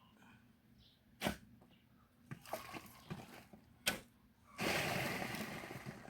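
A digging tool striking hard murram soil twice, a couple of seconds apart, with smaller scrapes and clicks of gravel between; near the end, a rush of loose soil is scraped and thrown.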